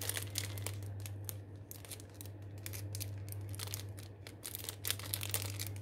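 Packaging rustling and crinkling in irregular small clicks as a hard-to-open packet is worked at by hand, over a steady low electrical hum.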